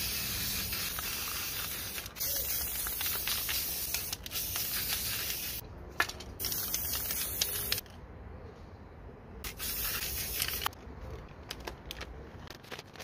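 Aerosol spray-paint cans hissing in repeated bursts of one and a half to two seconds, with short pauses between them. Near the end come shorter spurts and quick sharp taps.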